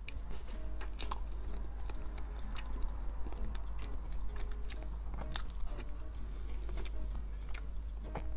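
Close-up eating sounds of someone chewing soft matcha cream cake: wet mouth and lip smacks with scattered sharp clicks, including the spoon at the mouth.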